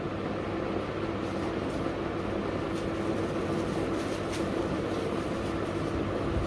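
Steady background hum of a shop, with a constant low drone, and a few faint rustles as a folded fabric dress piece is lifted and spread out on a glass counter.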